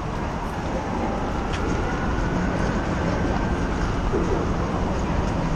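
Steady, dense rumble and hiss of wind and road noise on the microphone of a camera carried by a running runner, with no clear separate events.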